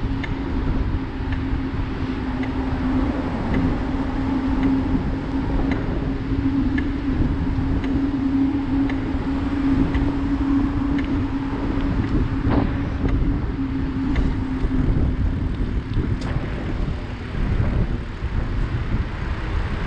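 Wind buffeting a GoPro action camera's microphone while riding a bicycle along a paved path, over a low rumble of the moving bike. A steady hum runs under it and stops about three seconds before the end, and faint ticks come about once a second.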